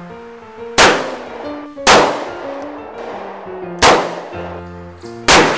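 Ragtime piano music, with four loud, sharp gunshot-like bangs laid over it, each with a short ringing tail.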